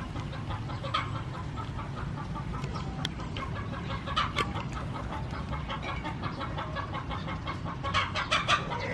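Chickens clucking: a string of short clucks, busiest about four seconds in and again near the end, over a steady low rumble.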